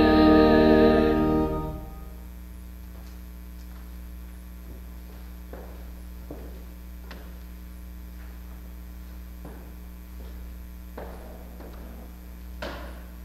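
A woman's solo voice holding a final sung note with vibrato, which ends about a second and a half in. After it, a steady electrical mains hum with a few soft footsteps on wooden steps and one slightly louder knock near the end.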